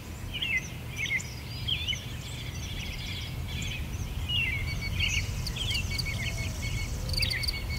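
Several songbirds singing in a forest, a steady run of short chirps and warbles, over a low steady rumble.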